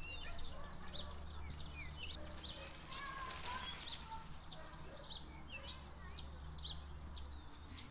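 Small birds chirping and trilling in quick, overlapping calls, over a low steady hum that drops away near the end.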